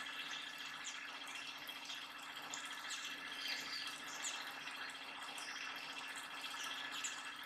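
Birds chirping in many short, high calls, several a second, over a steady low hum.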